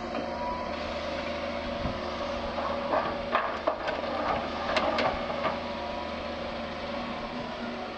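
Doosan DX180 LC excavator running steadily while it works, with a cluster of sharp knocks and cracks from the bucket working the ground a few seconds in.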